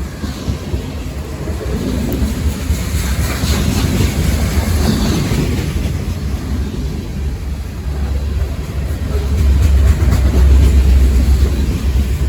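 Freight train led by an EMD SD38 diesel locomotive, running past with a steady low rumble that swells to its loudest about nine to eleven seconds in.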